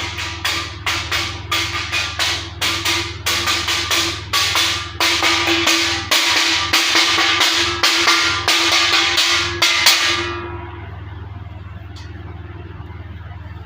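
A plate being knocked hard over and over, about three sharp strikes a second with a ringing tone under them. The strikes come faster in the middle, then stop suddenly about ten seconds in, leaving a low steady hum.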